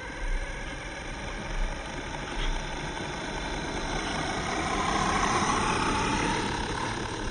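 Radio-controlled 4x4 with a 2430 7200 kV brushless motor and upgraded reducer gearing driving on asphalt: a wavering motor-and-gear whine over tyre noise, with a few low thumps early on. The whine grows louder about four to five seconds in as the car comes close.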